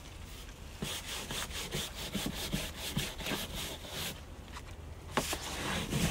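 Hand brush scrubbing wet paint stripper over textured cedar weatherboard, quick back-and-forth scraping strokes about three a second that work the softened tinted acrylic finish loose. The strokes pause about four seconds in, and a few sharp clicks follow.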